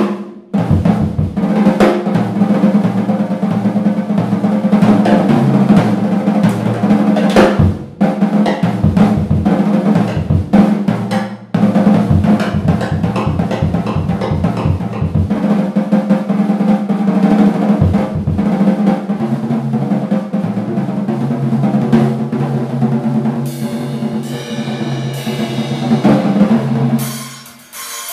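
Acoustic drum kit being played: dense strokes and rolls on snare, toms and bass drum, with cymbals. The playing breaks off briefly a few times.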